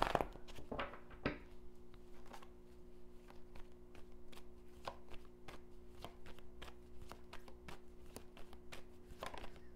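A deck of tarot cards being shuffled by hand, overhand. The cards slide and tap together in quick, irregular soft clicks, the loudest right at the start.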